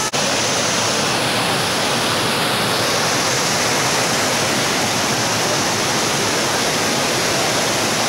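Steady rush of water pouring over the cascades and into the stream of a waterfall.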